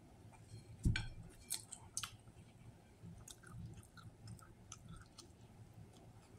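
A man chewing a mouthful of sub sandwich, with wet mouth clicks and smacks. A few sharper clicks come about one and two seconds in.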